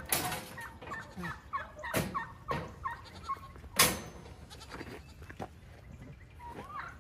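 Farm animals calling in many short chirps, with three sharp snaps: one at the start, one about two seconds in, and the loudest about four seconds in.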